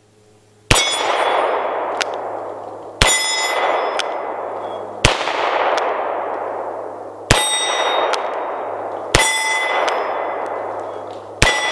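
Six shots from a Taurus 856 snub-nose .38 Special revolver, about two seconds apart, each followed by the ring of a struck steel plate target and a long echo off the woods.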